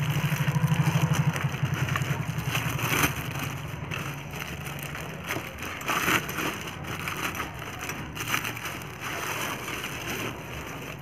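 Clear plastic wrapping crinkling and rustling in irregular crackles as a boxed power tool is handled and pulled out of its cardboard carton. A low hum sits underneath and fades out after about three seconds.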